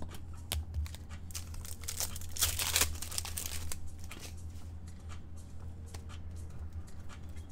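Hockey card pack's foil wrapper being torn open and crinkled, with the loudest stretch of tearing between about two and four seconds in, among light clicks of cards being handled.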